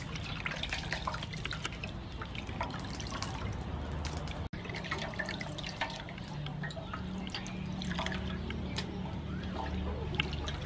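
Hands swishing and rubbing clam meat in a metal basin of water, with small irregular splashes and drips. The sound drops out briefly about halfway through.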